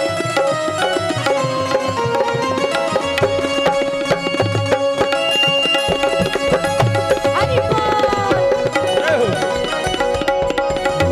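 Instrumental kirtan music: tabla drumming a steady rhythm under long held melody notes.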